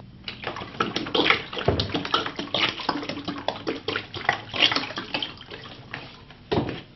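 Liquid poured in a splashing stream from a metal jug into a shallow tray, over a paper photographic print lying in it; the pour stops just before the end, with a single knock near the end.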